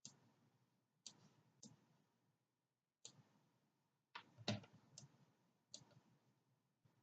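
Faint computer mouse clicking: about eight sharp clicks at irregular intervals, the loudest about four and a half seconds in.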